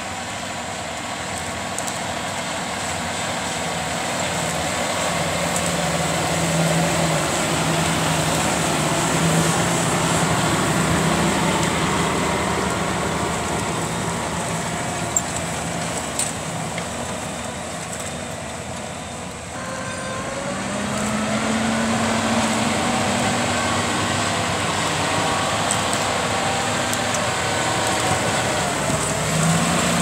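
John Deere 6250R tractor's six-cylinder diesel engine running steadily under load as it pulls a reversible plough through the soil. The hum grows louder over the first several seconds as the tractor comes close, dips briefly about two-thirds of the way in, then picks up again.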